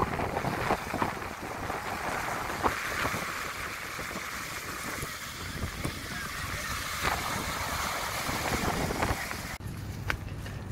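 Small sea waves breaking and washing up a pebble beach, with heavy wind on the microphone. The sound drops off abruptly near the end, leaving mainly wind.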